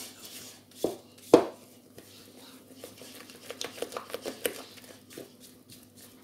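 Silicone spatula stirring thick chocolate cake batter in a stainless steel bowl. There are two sharp knocks on the bowl about a second in, and a run of quick scraping clicks in the second half.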